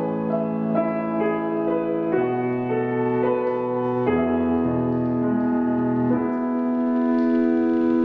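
Grand piano playing a slow passage of chords and melody, ending on a chord held and left to ring from about six seconds in.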